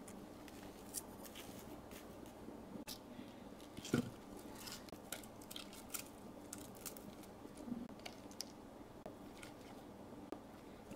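Raw cabbage leaves, carrot and green onion being placed by hand into a stone pot: faint crinkling of leaves and light clicks, with one louder knock about four seconds in.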